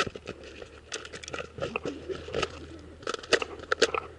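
Irregular crunching and clicking close to the microphone, from the player's gear and the dry, crumbly dirt as he shifts behind cover, with a denser cluster of clicks about three seconds in.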